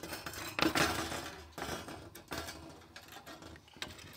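Wire cake cooling rack rattling against a plywood board as small carabiners clink on its corners while being clipped on. Irregular metal clatter and clicks, loudest about a second in, with a few sharp clicks near the end.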